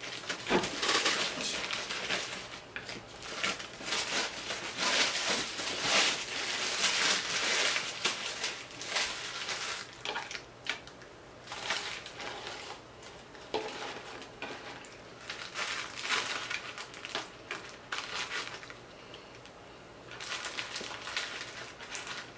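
Paper fast-food wrappers crinkling and rustling in irregular bursts as burgers and fries are unwrapped and handled, with a short lull near the end.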